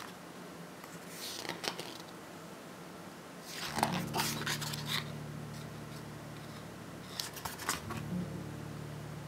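Pages of a hardcover art book being turned and handled, with paper rustling in short bursts. About four seconds in, a steady low hum starts and runs on under the page turns, briefly dropping out near the end.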